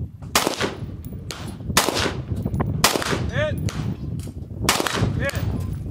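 Four rifle shots from an 11.5-inch CAR-15-style carbine, fired singly one to two seconds apart. A short ringing tone follows two of the shots about half a second later.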